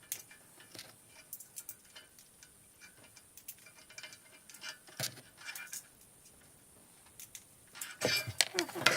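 Scattered small clicks and metallic clinks of screws being started into a case fan through thin sheet metal, with a louder burst of handling noise near the end.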